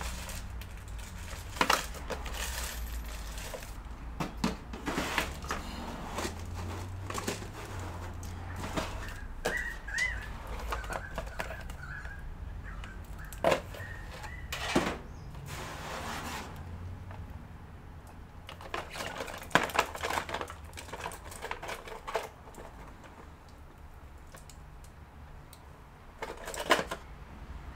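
Irregular clicks, knocks and rattles of computer parts and cables being handled, over a steady low hum, with a faint thin tone for a few seconds midway.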